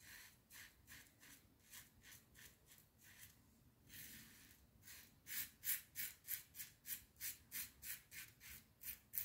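Double-edge safety razor (a Global Shave copy of the R41) scraping through lathered stubble in short, quick strokes, about three a second, faint at first and clearly louder from about halfway through.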